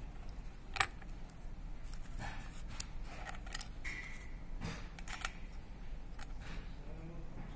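Irregular light clicks and taps of hand work on a power tiller's recoil starter parts, with a brief squeak about four seconds in.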